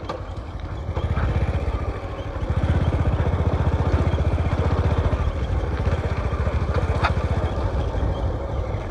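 Small motorcycle engine running as the bike is ridden along a rough dirt track, with a steady exhaust beat that gets louder about two and a half seconds in as the throttle opens.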